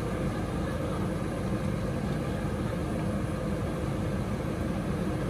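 Heavy diesel engine running steadily, the JCB 3DX backhoe loader towing a tipper truck stuck in a river by a chain, over the rush of the flowing river.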